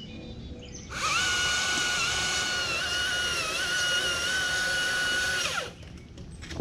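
Battery-powered chainsaw running at full speed for about four and a half seconds, its high, steady motor whine dipping slightly in pitch now and then, then winding down with a falling pitch.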